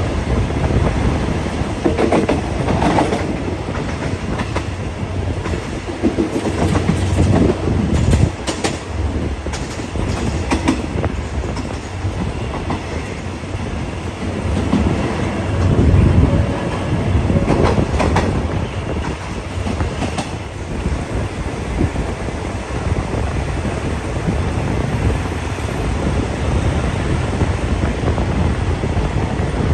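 Passenger train rolling along the track: a steady low rumble, with the wheels clacking over rail joints and points in bunches of sharp knocks a few times.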